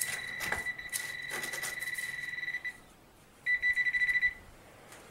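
Handheld metal-detector pinpointer pushed into floor debris, sounding a steady high beep for about three seconds, then a shorter, louder pulsing beep: it is signalling metal in the ground. A few light scrapes of the probe among the debris early on.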